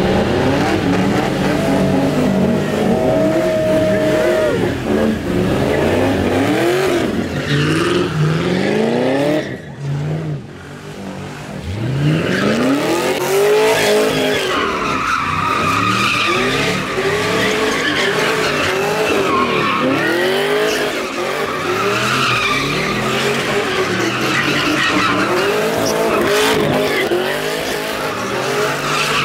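A car doing burnouts and donuts, tires squealing as the engine revs rise and fall over and over. About ten seconds in there is a short lull, then the revving and squealing pick up again.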